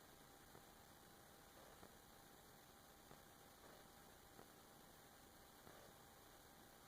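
Near silence: faint steady hiss with a thin electrical hum and a few faint ticks.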